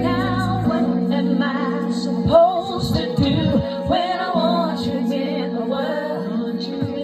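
A woman singing live into a microphone, her voice wavering with vibrato, over held chords of accompaniment.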